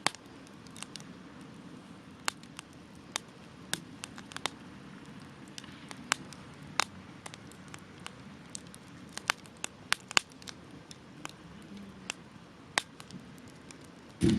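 Wood campfire crackling: irregular sharp pops and snaps, roughly two a second, over a steady low hiss of flame, with one louder, duller pop near the end.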